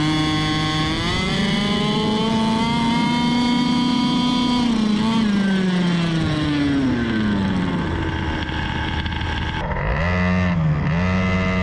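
Engines of a 32 cc petrol RC car and a bored-up Honda Tiger motorcycle accelerating off the line in a drag race. A high engine note climbs, holds for a few seconds, then falls away. Near the end the engines rev again.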